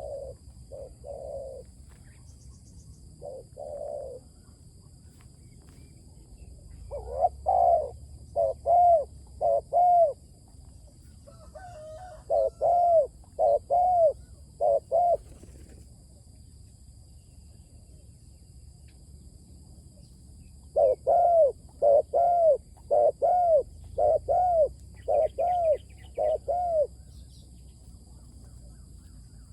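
Spotted dove cooing in five bouts of short, arched coo notes, a few to nine notes per bout, with pauses of a few seconds between bouts. The longest bout comes about two-thirds of the way in.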